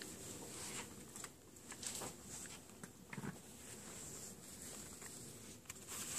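Quiet room tone with faint scattered clicks and rustles from a phone being moved around in the hand, over a steady faint high hiss.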